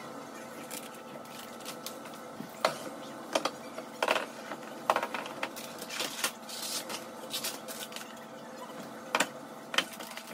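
Food packages, jars and cans knocking and clattering as they are set down on pantry cabinet shelves, in sharp irregular clacks over a steady faint hum.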